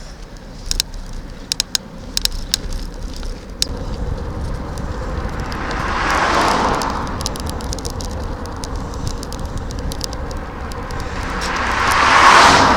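Two road vehicles pass one after the other, each a rising and fading rush of tyre and engine noise, over a steady low rumble, with scattered light clicks in the first few seconds.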